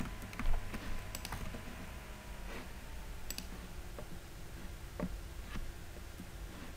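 Computer keyboard keystrokes: a louder cluster about half a second in, then a handful of isolated key or mouse clicks spaced roughly a second apart, over a faint steady low hum.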